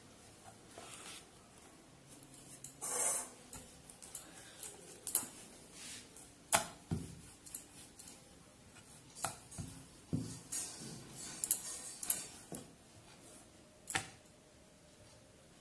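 Wooden rolling pin clicking and knocking on a round rolling board while a stuffed dough ball is pressed and rolled out, in scattered sharp taps with a short rubbing hiss about three seconds in.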